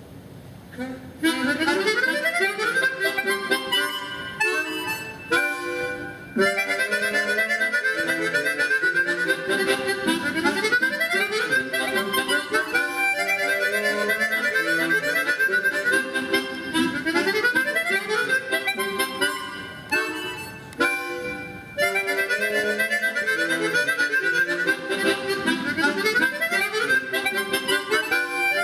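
Quartet of four chromatic harmonicas playing a fast, lively ensemble piece. It starts about a second in and has a couple of brief pauses in the phrasing.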